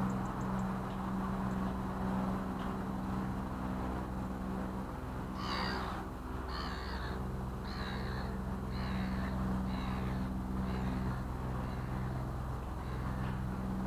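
Boat's engine running steadily, with a bird calling about eight times in a row from about five seconds in, the calls growing fainter toward the end.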